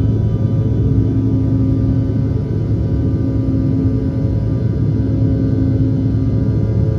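Bombardier CRJ-700's twin rear-mounted General Electric CF34 turbofans running steadily, a constant loud drone with a deep hum and several steady higher tones.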